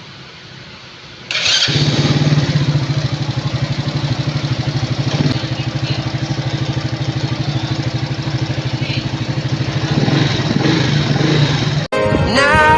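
Single-cylinder motorcycle engine, a Marvel 130i, running at a steady idle with an even, fast exhaust pulse. It comes in abruptly about a second in and runs until music cuts in near the end.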